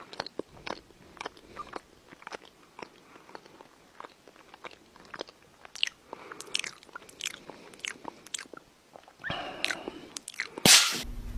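Cat licking and grooming itself: a string of irregular clicking licks, with a brief louder noise near the end.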